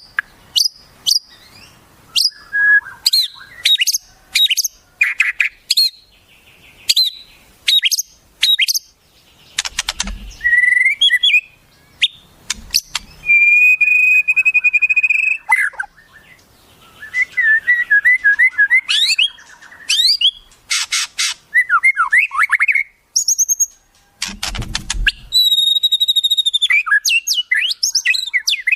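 Recorded wild songbirds calling in quick succession: varied sharp chirps and whistles, a long steady trill near the middle, then a fast warble. Two harsh, noisy calls stand out, about ten seconds in and again near twenty-four seconds.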